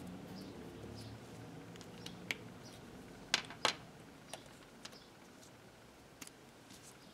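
Felt-tip marker writing faintly on paper, then a few sharp clicks as the marker is handled and set down, the loudest two close together near the middle.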